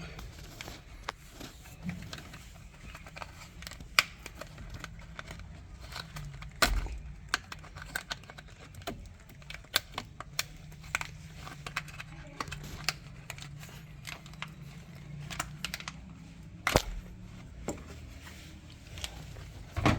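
Irregular clicks, knocks and rattles of hard parts being handled, with a low steady hum underneath.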